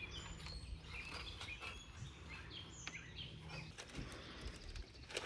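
Quiet outdoor ambience with faint bird chirps, and a few soft taps near the end.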